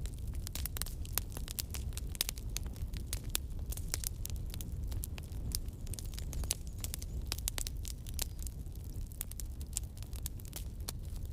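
Campfire burning, with many sharp, irregular crackles and pops from the burning wood over a low, steady rumble of the flames.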